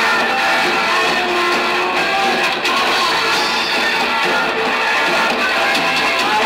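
Punk rock band playing live, electric guitars to the fore, in a loud, murky audience recording.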